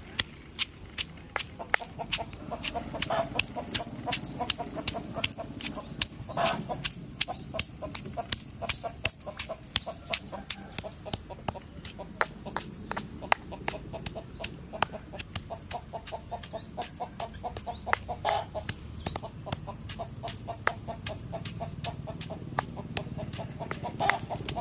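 Stone pestle pounding chillies and garlic in a heavy stone mortar: a steady run of knocks, about three a second.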